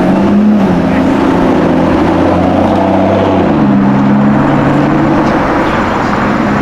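Car engine running hard at speed; its pitch rises, holds, and drops once about three and a half seconds in, then carries on steadily.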